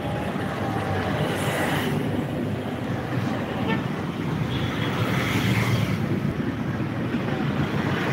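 Steady outdoor street noise: a constant low rumble of road traffic, cutting in suddenly at the start.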